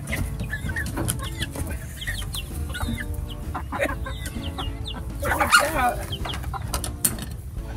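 Backyard chickens clucking, with many short high calls and one louder, longer call that wavers in pitch about five and a half seconds in.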